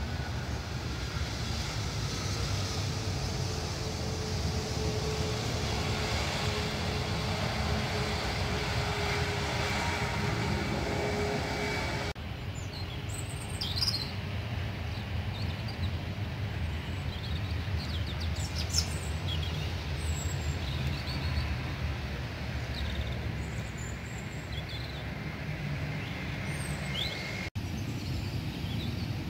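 Jet airliner engines running on the taxiway: a steady rumble with a faint whine. About twelve seconds in, the sound cuts to a lower, more distant jet rumble with birds chirping several times over it.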